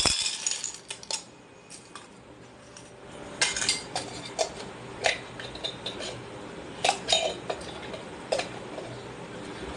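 Small metal toy cooking pots and lids clinking and scraping as a child handles them while playing at cooking. A burst of clinks comes right at the start, then after a short lull a series of single clinks follows.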